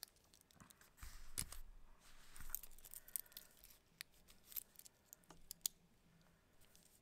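Faint handling of a watch being put on: the gold PVD three-link bracelet's links clink and rustle, with a few sharp clicks from the clasp being closed over the second half.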